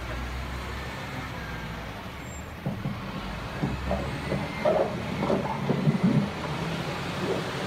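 Diesel engine of heavy machinery running steadily, with a stretch of irregular clanks and scrapes from about three to six seconds in as a wheel loader works a pile of rocks and rubble.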